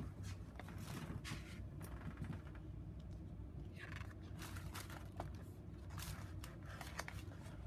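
Paper and cardboard rustling and scraping in irregular bursts as a glossy magazine is lifted out of a subscription box and set down over tissue and crinkle-paper filler.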